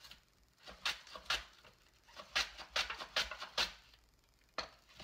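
A whole onion slid back and forth across a mandoline slicer's blade, cutting it into rings: a series of quick slicing strokes, about two a second in the middle, with a short pause about four seconds in.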